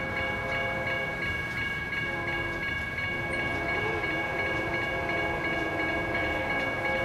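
Railroad grade-crossing warning bell starting up and ringing a steady, rapidly repeating electronic ding, signalling an approaching train. Under it, the approaching BNSF freight's horn sounds faintly in the distance.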